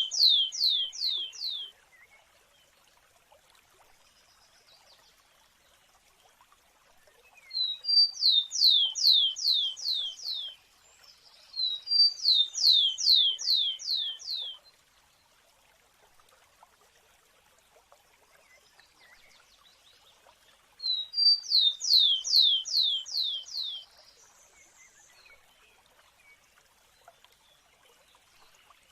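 A sparrow singing: each phrase opens with one or two thin short notes, then runs into about five quick high downslurred notes. The phrase repeats several times with pauses of a few seconds to several seconds between.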